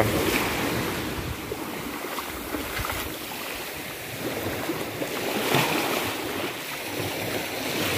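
Ocean surf washing onto a rocky shore, a steady rushing noise that swells slightly now and then.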